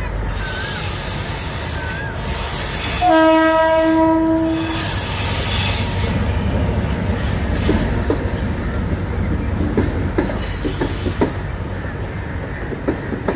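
Diesel train passing close by on a curve: high-pitched wheel squeal, then one horn blast about three seconds in that lasts nearly two seconds, then the wheels clatter over the rail joints as the carriages roll past, over a steady low rumble.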